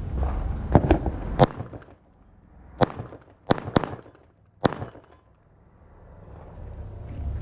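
A string of about seven AR-style rifle shots, irregularly spaced, all in the first five seconds.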